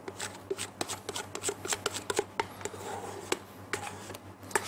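Plastic bowl scraper scraping whipped cream out of a steel mixing bowl: a quick, irregular run of scrapes and clicks of the scraper against the metal.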